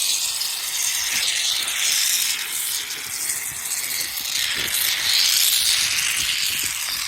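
Pressurized spray hissing steadily as turf-repair glue is applied to a wet seam; the hiss swells and eases a little but does not stop.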